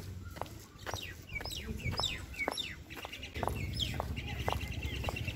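A flock of birds calling: many short chirps, each falling quickly in pitch, repeated throughout. A low rumble runs underneath and grows stronger about three seconds in.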